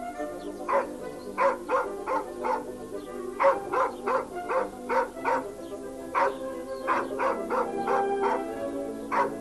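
A dog barking in quick succession, about two barks a second with short gaps, over held notes of background music.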